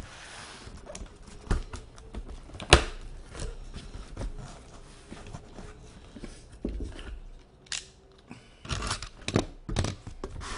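A large cardboard shipping case being ripped open by hand: tape tearing and cardboard flaps scraping and crackling, with a sharp snap a little under three seconds in and a quick run of rips near the end.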